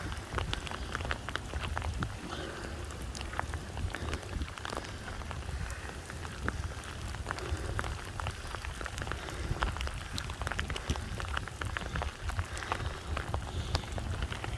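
Steady rain falling, with many small sharp drop hits over an even hiss and a steady low rumble.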